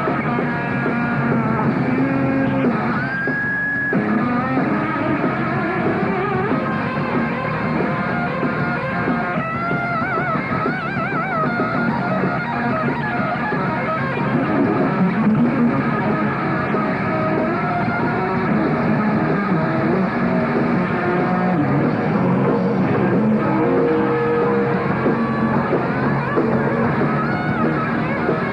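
Rock band playing live through amplifiers, electric guitars over drums. A high note is held about three seconds in, and a wavering high line comes in about ten seconds in.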